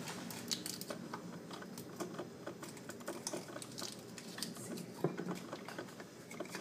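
Light, irregular clicking and tapping against a ceramic coffee mug as small hands work inside it, with one sharper knock about five seconds in.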